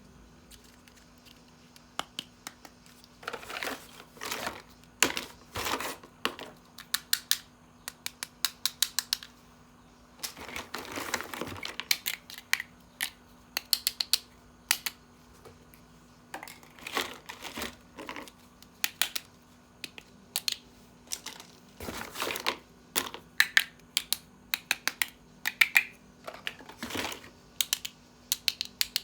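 Plastic toy parts and packaging being handled: an irregular stream of sharp clicks and taps, with a stretch of crinkling about ten seconds in.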